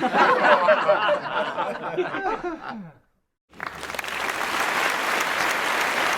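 Laughter for about three seconds that cuts off suddenly, then, after a brief silence, steady applause.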